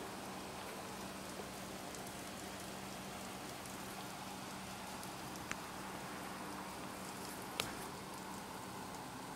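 Steady background hiss with a faint low hum, broken by two sharp clicks in the second half, the second one louder.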